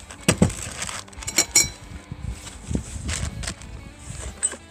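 Metal sawmill leveling-foot parts, steel foot plates and bolts, clinking and knocking against each other and a wooden tabletop as they are handled, about half a dozen sharp clinks, some with a brief metallic ring.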